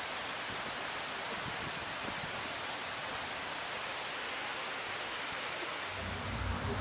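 Steady rushing of the 9/11 Memorial reflecting pool's waterfalls, water pouring down the basin walls into the pool. A low rumble joins near the end.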